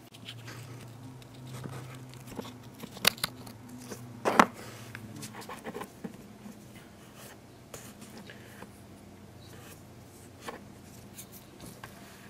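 Small clicks and scrapes from fingers handling a sprayer pump's plastic pressure-switch housing and the spade-terminal wires on it, with two sharper clicks about three and four and a half seconds in. A faint low steady hum sits underneath for the first half.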